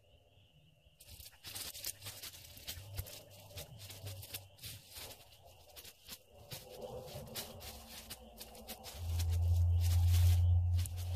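Irregular crackling and rustling of dry leaves and twigs being disturbed. About nine seconds in, a loud low rumble takes over and is the loudest sound.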